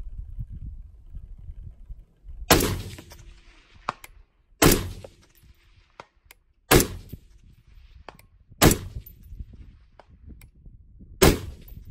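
Five shots from a suppressed .308 AR-10 semi-automatic rifle, fired one at a time about two seconds apart, each a sharp report with a short fading tail.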